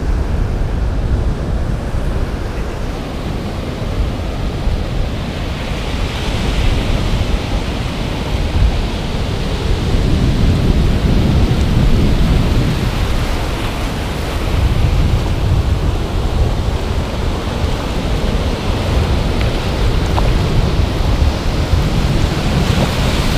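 Ocean surf breaking and washing up a sandy beach, mixed with wind buffeting the microphone as a heavy low rumble. The noise swells and eases without a break, loudest about halfway through.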